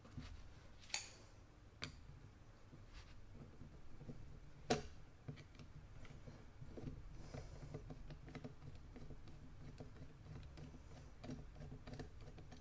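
Hand work on small parts of the air rifle: a couple of sharp clicks, a louder metallic snap about five seconds in, then a run of light, irregular ticks and taps.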